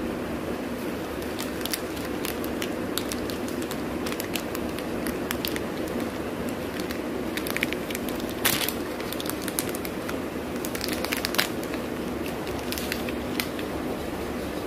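A chocolate bar's wrapper being opened by hand: the wrapper and its inner foil crinkle and crackle in many small sharp clicks, with a louder snap about eight and a half seconds in, over a steady background hum.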